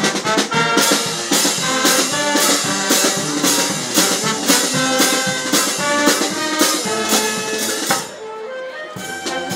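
Brass music with trumpets and drums over a steady beat; it drops quieter about eight seconds in.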